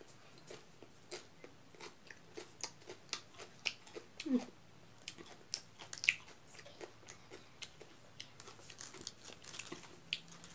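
A person chewing and biting a mouthful of food: a run of short wet mouth clicks and crunches, several a second.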